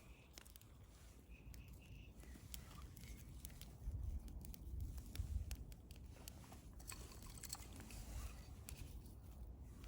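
Wood fire burning with faint, irregular crackles and small sharp pops over a low rumble.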